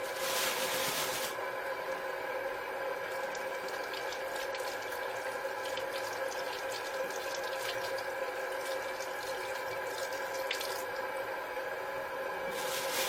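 Water running from a tap into a sink, louder in the first second and again near the end, with small splashes and clicks between, over a steady hum with several fixed tones.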